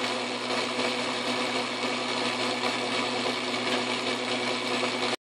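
Atlas metal lathe running steadily, its chuck spinning a black-pipe workpiece: an even motor and drive hum with a few steady tones.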